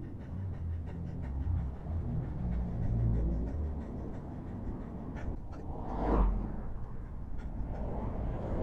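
Wind buffeting an action camera's microphone on a moving bicycle, a steady low rumble with light scattered ticks and a louder rush about six seconds in.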